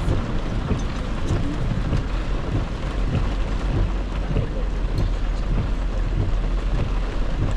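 Heavy rain falling on a car's roof and windscreen, heard from inside the cabin as a steady hiss over the low rumble of the car's engine and tyres on the wet road.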